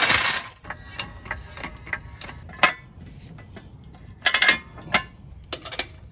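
Steel floor jack rolling over concrete, then a run of clicks and a few sharp metal clanks as a jack stand is set under the truck.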